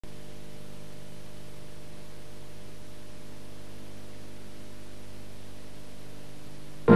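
Steady electrical hum, several low tones at once, with hiss on an old videotape recording of a TV broadcast. Loud music cuts in abruptly at the very end.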